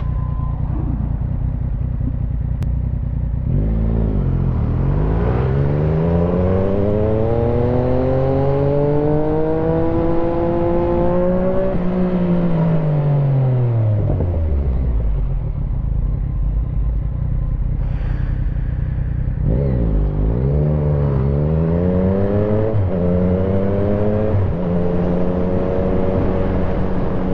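Yamaha MT-09's three-cylinder engine pulling under acceleration, heard through a helmet-mounted microphone. The revs climb steadily for about eight seconds and then drop away as the throttle closes. They climb again with a couple of brief dips before holding steady.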